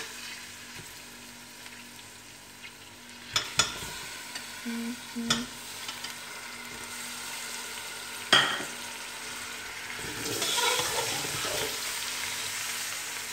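Beef pieces sizzling as they fry in hot oil and ginger-garlic paste in a pressure cooker, stirred with a metal spatula that clacks sharply against the pot a few times. The sizzle grows louder about ten seconds in as the meat is turned over.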